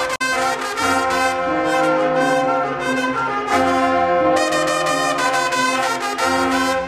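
Marching band brass section (trumpets, mellophones, sousaphones and saxophone) playing loud held chords that change every second or so. There is a momentary break in the sound just after the start.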